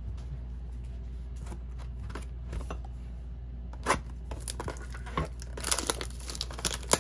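A trading card pack's foil wrapper being torn open and crinkled by hand. A few light rustles and clicks come first, then a sharp rip about four seconds in, followed by dense crinkling near the end.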